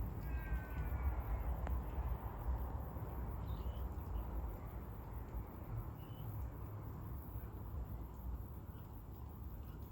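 A crow gives a long, slightly falling call in the first second or so. A few faint short bird chirps follow over a steady low rumble.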